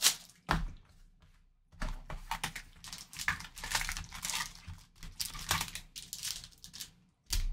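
Plastic shrink-wrap crinkling and rustling as it is stripped off a cardboard trading-card hobby box, then the box being opened and the wrapped card packs lifted out with more rustling. The crackles come in irregular bunches, with a short lull about a second in.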